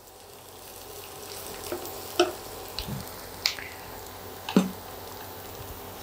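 Chopped onion sizzling steadily in hot oil in a frying pan as it fries toward light brown. A wooden spatula stirs it and knocks and scrapes against the pan a few times, loudest about two seconds in and again about four and a half seconds in.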